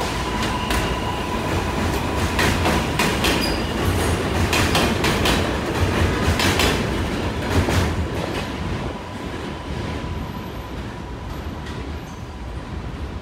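New York City subway train of R143 cars running past, its wheels clacking irregularly over rail joints over a heavy rumble with a thin steady high tone; the sound falls away after about eight seconds as the train leaves.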